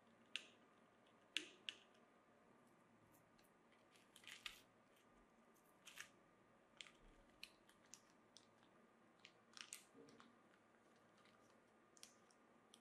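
Faint, scattered small clicks and rustles: a screwdriver turning a small screw, then a small plastic bag of metal screws being handled.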